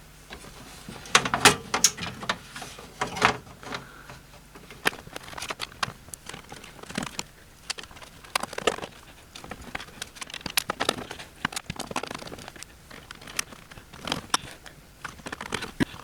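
Motherboard being fitted into a metal computer tower case and screwed down to its mounting standoffs: irregular clicks, taps and light rattles of screws, screwdriver and board against the case.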